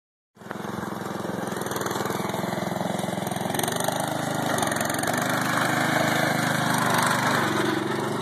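Riding lawn mower's small engine running steadily, starting just under half a second in.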